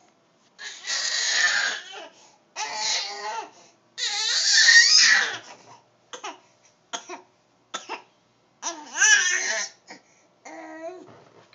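A dog 'talking': drawn-out whining and groaning vocal sounds with wavering pitch, in several bursts of a second or two. Around the middle there are a few short, sharp yelps or huffs.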